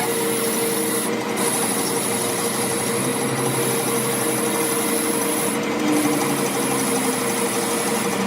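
A power tool running continuously while working metal, with a steady whine.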